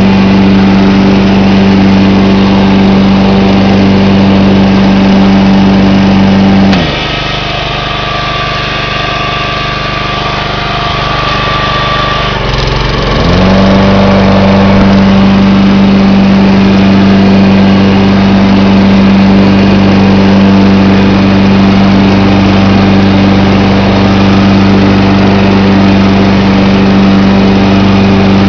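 A John Deere 14SE walk-behind rotary lawn mower's engine running steadily at mowing speed while cutting grass. About a quarter of the way in its speed drops sharply and it runs slower and quieter for about six seconds, then climbs back up to full speed.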